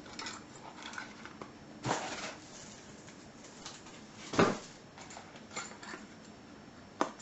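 Metal padlocks and loose keys being handled and rummaged through in a box: scattered light clinks and knocks, a louder rustling knock about two seconds in and one short, loudest sudden sound a little past four seconds.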